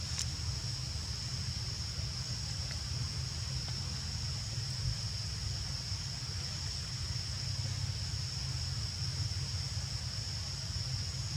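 Steady outdoor ambience: a continuous high-pitched insect drone over a low rumble, with a few faint clicks.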